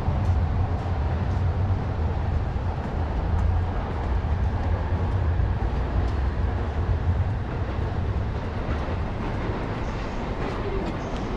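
Steady low rumble of passing vehicles under a constant wash of street noise.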